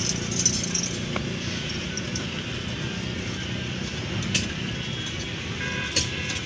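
Steady low motor hum, with a few light clicks about four and six seconds in as fingers work at the valve in a steel truck rim.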